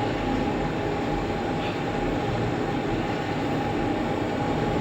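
LG passenger lift travelling fast: a steady rumble and rush of air inside the moving car, with a constant whine.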